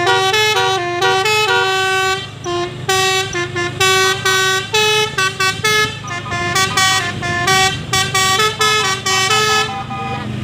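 Basuri telolet horn, a set of roof-mounted air-horn trumpets, playing a quick melody of short and held notes that step up and down in pitch, over a steady low hum.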